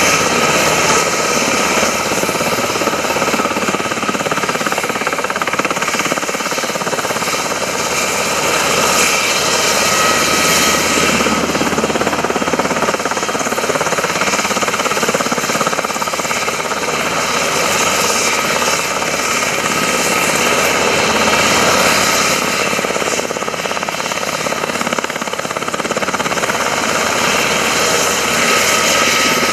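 Sikorsky UH-60 Black Hawk helicopter running on the ground with its rotors turning: steady, rhythmic rotor chop over the whine of its twin turboshaft engines.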